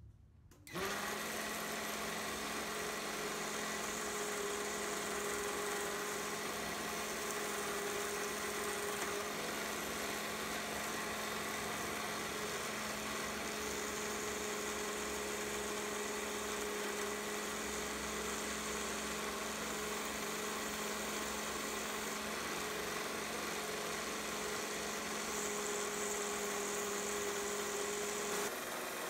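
Small belt grinder driven by a 775 DC motor switches on about a second in and runs steadily with a high-pitched whine. A workpiece held against the abrasive belt adds a sanding hiss that swells at times.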